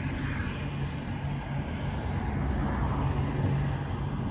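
Wind buffeting the microphone as a steady, uneven low rumble, over a faint steady low hum.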